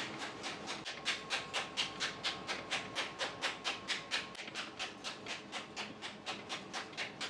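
Quick, even hand-work strokes in a kitchen, about four a second, each a short scrape or swish, starting about a second in. A faint steady hum runs underneath.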